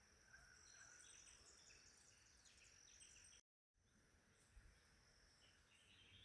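Near silence: faint outdoor ambience with a steady high insect drone and a few faint bird chirps, cut off by a brief moment of dead silence about three and a half seconds in.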